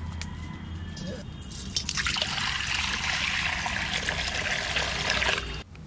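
A stream of water is poured into a metal wok, a steady splashing pour that starts about two seconds in and cuts off suddenly near the end.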